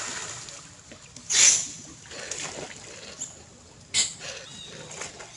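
Macaques splashing into and through pond water: one loud splash about a second and a half in, a sharper splash near four seconds, and smaller splashes between.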